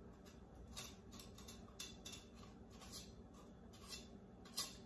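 Kitchen knife scraping and cutting the white membrane and seeds out of the inside of a hollowed red bell pepper. Faint, irregular crisp scrapes, the last near the end the loudest.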